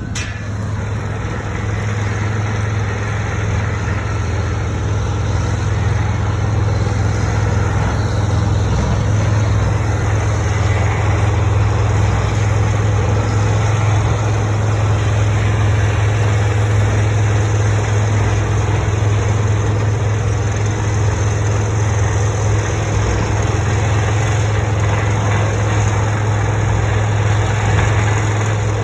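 Tractor engine running steadily under load, a constant low hum with broad machine noise over it.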